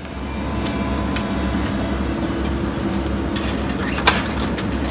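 A heavy vehicle's engine running steadily with a low rumble, and one sharp click about four seconds in.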